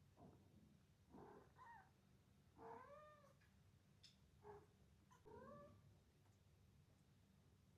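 Young kittens mewing: about four short, high, soft mews, each rising and falling in pitch.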